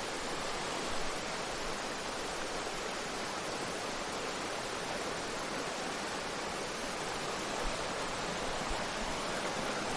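Steady rushing of flowing river water, an even hiss with no rhythm.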